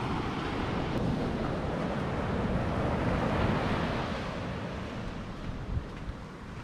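Ocean surf washing up a sandy beach, a steady wash that swells around the middle and eases off toward the end, with wind buffeting the microphone.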